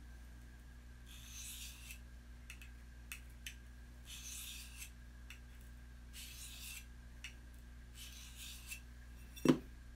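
A knife blade is stroked along a hand-held sharpener, four rasping strokes about two seconds apart: the edge is being sharpened. A sharp knock comes near the end.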